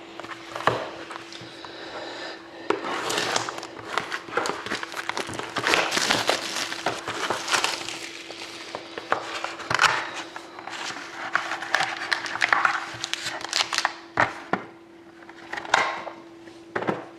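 Plastic shrink-wrap crinkling and crackling as a sealed trading-card box is unwrapped by hand, in irregular handling noises with a few sharper clicks, over a steady faint hum.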